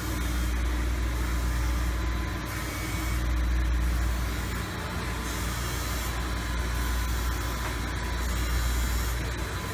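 Steady machine-shop background noise: a low rumble that swells and fades slowly, with a faint steady hum over it and no distinct events.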